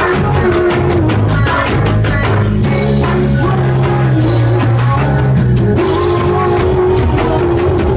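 Loud live music performance: a man's vocals through a handheld microphone over a backing track with a heavy, steady bass beat and drums.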